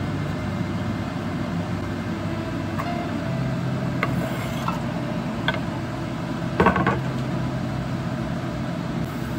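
A knife scrapes chopped garlic off a wooden cutting board into a nonstick wok, with a few light clicks and then a louder clatter of knocks about two-thirds of the way through. A steady hum runs underneath.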